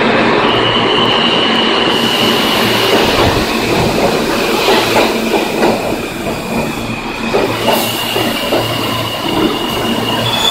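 New York City subway train pulling into the station and along the platform, wheels clattering over the rail joints. A high, steady squeal from the wheels sounds for a few seconds near the start and again near the end.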